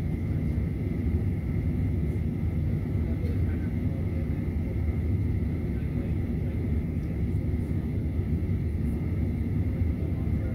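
Cabin noise of a Boeing 737-900ER with its CFM56 jet engines at idle: a steady low rumble with a thin high tone above it.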